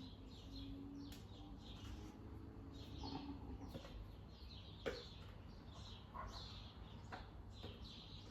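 Birds chirping faintly and repeatedly in the background, with a few sharp clicks of handling, about a second, five, six and seven seconds in.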